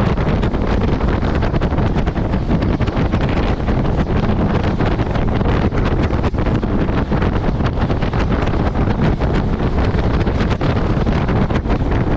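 Wind buffeting the microphone over the steady noise of a fishing boat running fast over the sea, with the hull slapping through the waves and spray.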